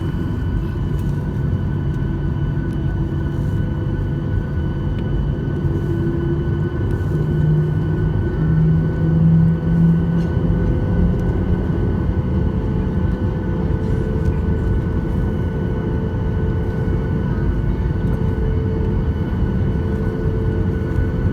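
Boeing 737-800 cabin noise with its CFM56-7B turbofan engines running: a steady low rumble with a few steady whining tones. A tone climbs in pitch about six to ten seconds in, and another higher tone comes in about halfway through.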